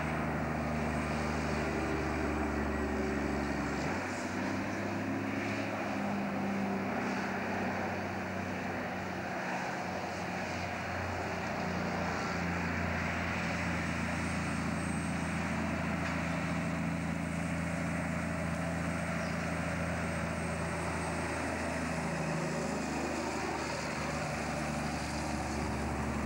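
Diesel engine of a loaded logging truck running hard on a climb, a steady drone whose note changes several times as it shifts gear, getting closer as the truck passes near the end.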